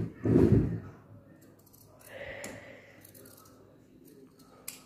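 Large tailor's scissors snipping through cotton fabric in a few short, separate cuts while trimming a garment's neckline, with a dull thump of handling near the start.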